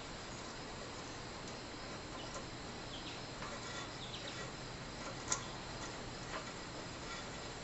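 Faint clicks and rustles of electrical wires being handled against a sheet-metal light fixture, with one sharp click about five seconds in, over a steady low hiss.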